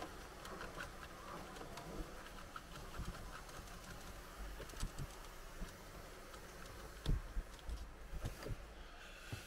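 Detailing brush scrubbing over car dashboard and vent plastics, making light rustling and small irregular clicks and taps. A louder knock comes about seven seconds in.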